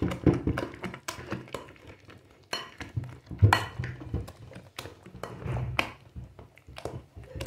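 Wire potato masher pounding bananas in a glass bowl: irregular clinks and knocks of the metal masher against the glass, a few each second, with dull thuds as it presses into the mash.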